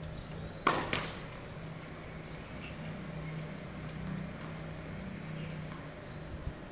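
Two sharp knocks of a tennis ball, about a quarter second apart, just under a second in, over a steady low hum.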